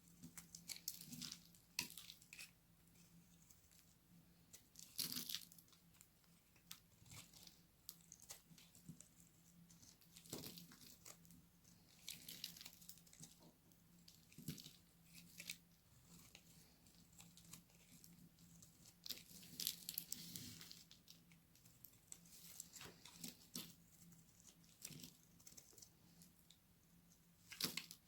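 Knife cutting through very dry soap: irregular crisp crunches and cracks that come in clusters every few seconds, the loudest about five, ten and twenty seconds in.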